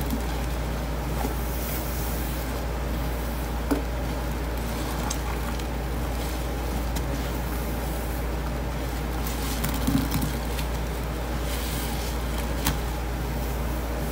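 Sponges squeezed and pressed through thick blue paste made from powdered detergent: soft wet squishing and crackling with a few sharp clicks, over a steady low hum.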